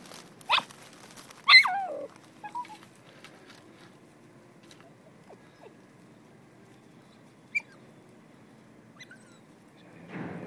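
A hunting dog whining while it works the scent of a rabbit hidden in the brush: two short high whines in the first two seconds, the second sliding down in pitch. Then only faint rustling, with one short squeak near the end.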